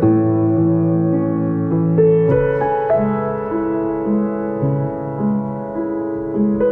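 Slow, relaxing background piano music: held notes and chords that change about every second over a low bass line.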